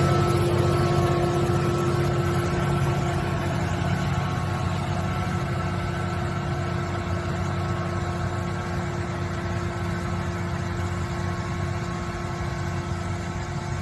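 Tractor engine and PTO-driven power harrow running steadily, a constant mechanical drone that slowly grows quieter.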